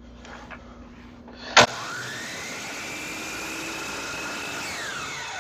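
DeWalt DW718 miter saw switched on with a sharp click about a second and a half in, its motor whining up to speed and running steadily, then slowing with a falling whine near the end.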